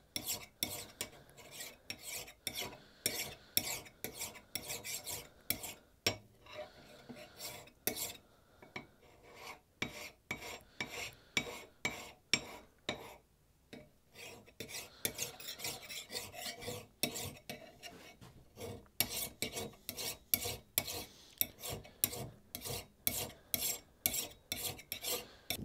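Hand file scraping across the steel of a Vulcan hewing axe head in quick repeated strokes, about two or three a second, with a brief quieter lull about halfway through.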